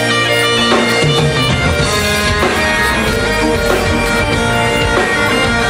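Highland bagpipes playing a tune live with a rock band: electric guitars and drums backing the pipes, heard through the PA.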